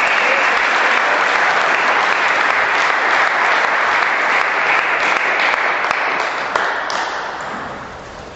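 Audience applauding a won point in a table tennis match, the clapping dying away over the last two seconds.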